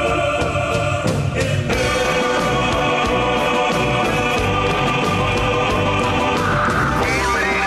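Background music with a choir singing long held notes.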